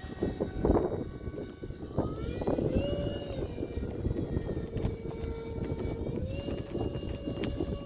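Radio-controlled delta-wing model airplane's motor and propeller running with a steady whine, its pitch stepping up briefly about two and a half seconds in and again near six and a half seconds as the throttle changes. A gusty low rumble of wind on the microphone, strongest about a second in.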